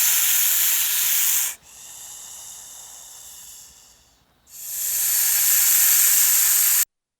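An animal hissing in long breaths: a loud hiss, a quieter one, then another loud hiss that cuts off sharply.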